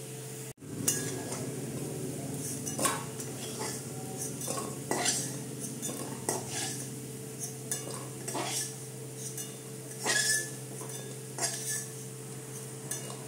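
A metal spatula scrapes and clinks against a metal kadai as fried potato cubes are scooped out, a stroke every second or two, over a steady low hum.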